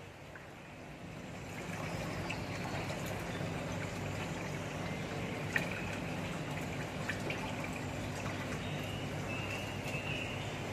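Water trickling steadily from a bamboo-spout fountain into a stone basin, coming up a second or two in, over a low steady hum.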